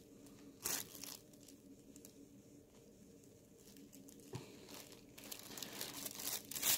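Faint handling noise: a few brief rustles and crinkles from hands and paper packing near the microphone, growing busier near the end, over a faint steady low hum.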